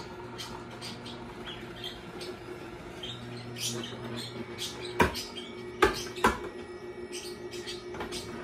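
Tribest Green Star Elite twin-gear juicer running with a steady low hum while produce is pressed down its feed chute with the plunger, giving many short squeaks and crackles. Three sharp knocks about five to six and a half seconds in.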